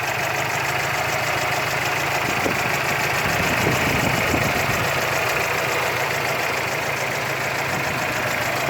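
GAZelle's UMZ-4216 four-cylinder petrol engine idling steadily with a dull knock from low at the back of the engine: the sign of a crankshaft cracked at the last (fifth) journal and a loose flywheel.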